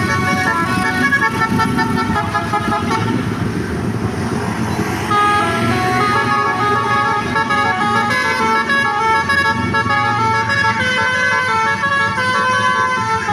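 Bus 'basuri' telolet horn, a multi-tone musical horn, playing a tune of stepping notes over the rumble of the bus's running engine. A rush of noise swells briefly about three to five seconds in.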